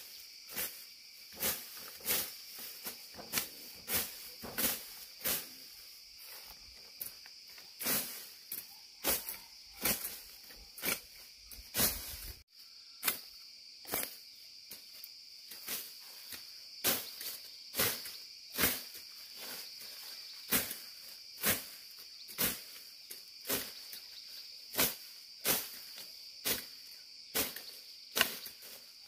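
Crickets trilling steadily in a high band, under short, sharp strikes that repeat about every half second to a second. The strikes are the loudest sound.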